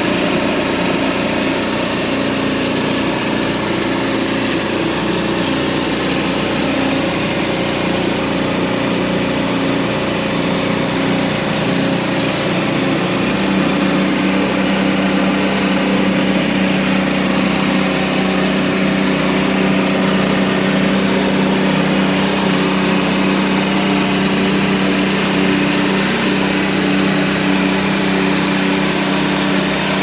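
Portable sawmill's engine running steadily. About 13 seconds in, its note changes and settles into a steadier, stronger drone.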